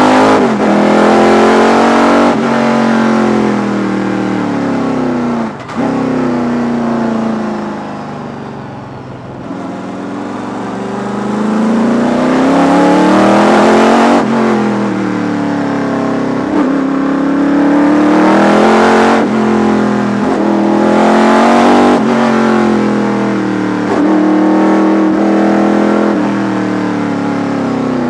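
V8 sports sedan racing engine heard from inside the cockpit, revving hard. Its pitch climbs and then drops sharply at each gear change, again and again. It eases off about eight seconds in and builds up once more a couple of seconds later.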